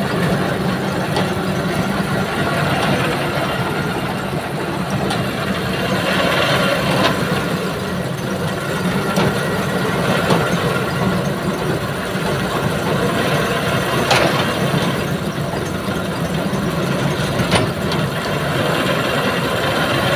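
Heavy diesel engine of a tow-crane truck running steadily, driving the winch that is lifting an overturned tanker truck. A few sharp knocks come through now and then.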